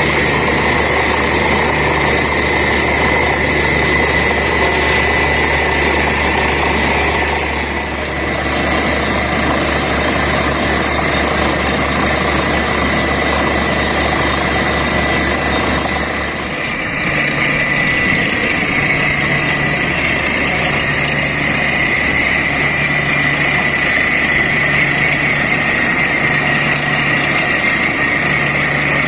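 Borewell drilling rig and its air compressor running steadily under load, with a constant high whine over a low engine hum; the tone shifts about 8 seconds in and again about 16 seconds in.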